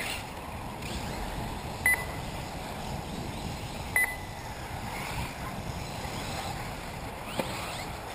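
Two short, high electronic beeps about two seconds apart, typical of a race timing system, over the steady background of 1/8-scale electric RC buggies running on the track.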